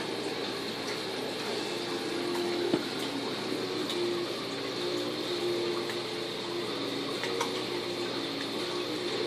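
Steady trickling and splashing of water from AquaClear hang-on-back aquarium filters running, with a faint on-and-off hum. A single sharp tap about three seconds in.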